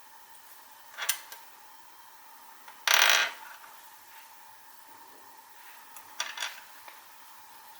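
Small hard plastic pieces being handled: a light click about a second in, a louder short clatter about three seconds in, and a few more clicks near the end, typical of a Kinder egg's plastic capsule and toy parts being opened and put together.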